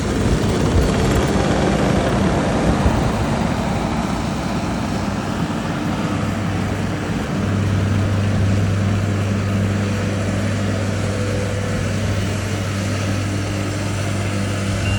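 Engine of earthmoving equipment running steadily while a Harley rake works the driveway gravel. About seven seconds in it settles into a stronger, deeper hum.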